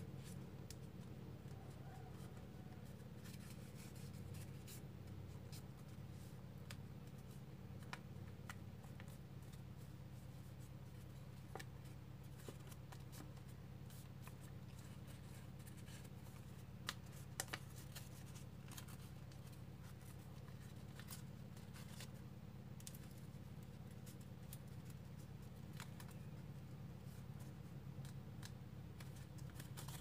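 Origami paper rustling and crinkling as hands fold and crease it, a scatter of faint crisp clicks with a few louder ones about seventeen seconds in, over a steady low hum.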